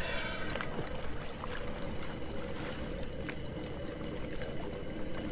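Sea and boat ambience: a steady low rumble of water with a constant droning hum and scattered small clicks and splashes.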